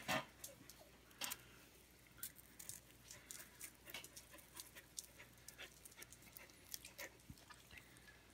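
A dog panting quietly, with faint irregular clicks scattered throughout.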